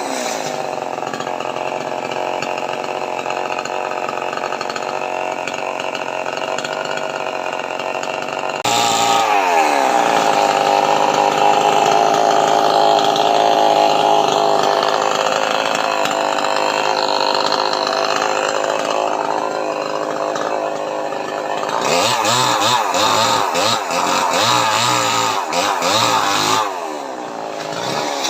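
Two-stroke chainsaw running steadily, then about a third of the way in it gets louder and its pitch drops as it cuts into jackfruit wood under load for about twelve seconds. Near the end it is revved up and down several times.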